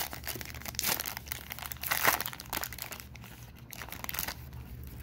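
Baseball card pack wrapper being torn open and crinkled by hand, a run of crackling rustles that is loudest about one and two seconds in and dies away near the end.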